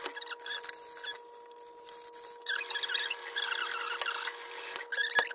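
Tap water running into a bathroom sink while hands rub a freshly wet-sanded tumbler under the stream, with bursts of short squeaks of skin on the wet cup, busiest through the middle. A steady hum runs underneath.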